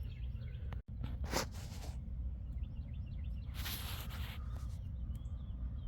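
Outdoor background of a steady low rumble with small birds chirping, and a short hiss a little past halfway.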